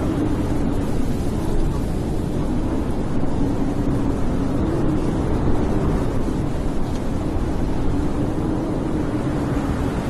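Snowstorm wind blowing steadily, a low rumble with a wavering, moaning low tone.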